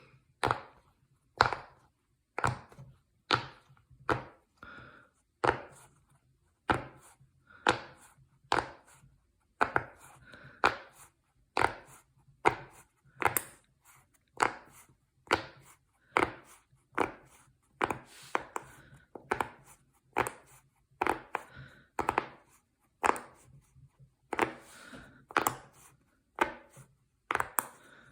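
Silicone pop-it fidget toy bubbles being pressed in, popping one at a time in a steady rhythm of about one pop a second.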